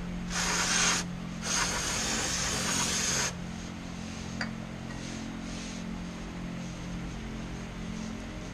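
Two bursts of hissing spray, a short one and then one of about two seconds, over a steady low hum.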